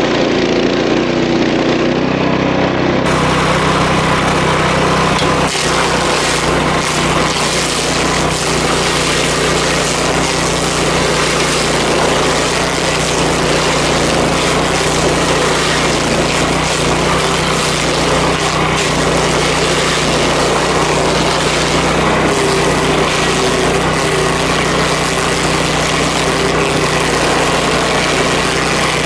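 Power King stump grinder running steadily under load, grinding an ash stump.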